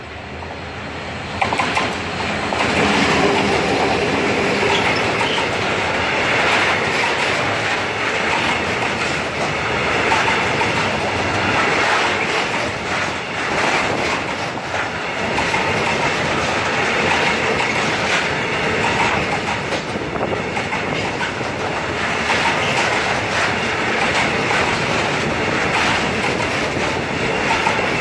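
Freight train passing close by: the DE 33000-class diesel-electric locomotive, with its EMD 16-645E3C two-stroke diesel, draws level about a second and a half in, then a long string of loaded flat wagons rolls past, wheels clicking over the rail joints.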